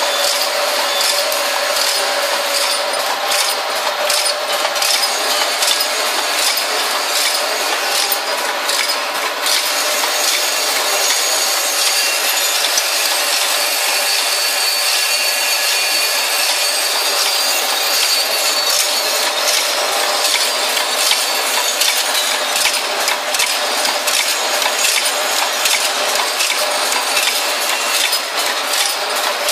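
Automatic screw counting and packing machine running: a continuous metallic rattle and clinking of small screws shaken along its vibratory bowl feeder and falling through the machine.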